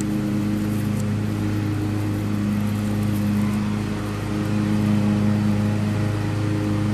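An engine idling: a steady low hum with no change in pitch.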